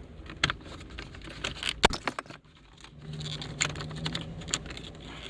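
Irregular plastic clicks and rattles as a Toyota Corolla's aux port wiring connector is pushed and worked loose behind the console trim, with one louder click just under two seconds in. A low hum comes in about three seconds in.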